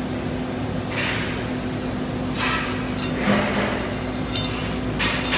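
A few light metallic clinks and taps from the welded steel plates being handled on a steel workbench, with a quick run of clinks near the end, over a steady low hum.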